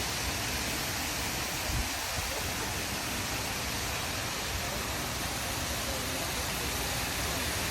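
Steady rushing noise, like rain or running water, with a brief low thump about two seconds in.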